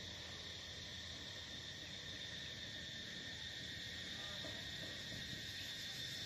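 A steady chorus of insects droning in the trees, one continuous high-pitched tone with a fainter, lower tone beneath it.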